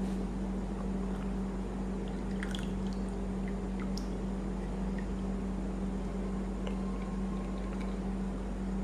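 Steady low hum with a constant hiss, and a few faint clicks.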